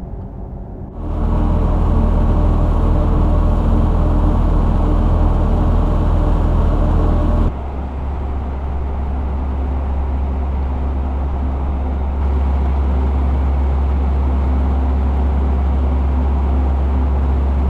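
Mercedes-AMG EQE 53 4MATIC+ electric car under way, its synthesized AMG sport drive sound a loud, deep, steady hum with several held tones. It starts about a second in and changes abruptly twice.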